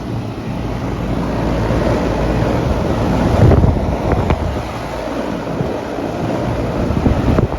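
Outdoor air-conditioning condenser unit running close by: a steady rush of fan air over a low hum, with a couple of sharp knocks about halfway through and near the end.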